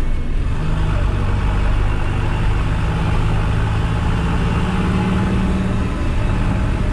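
New Holland tractor's diesel engine running steadily, its hum growing a little stronger for about a second around five seconds in.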